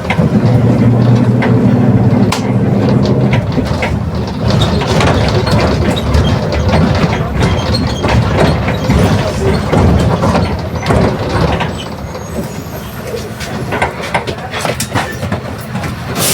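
Mercedes-Benz OF 1721 BlueTec 5 bus on the move: a steady drivetrain drone with a growling differential, and the body rattling and clicking. The drone is strongest for the first few seconds, then gives way to the rattling.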